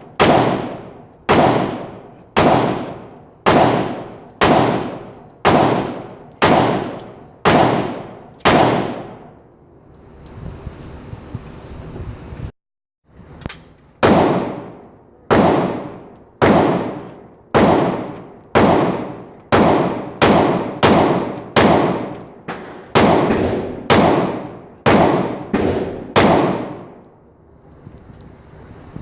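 Smith & Wesson M&P 9C 9mm pistol firing at a range in two strings of shots, about one a second. About nine shots come first, then after a break about fifteen more, coming faster toward the end. Each shot trails off over most of a second.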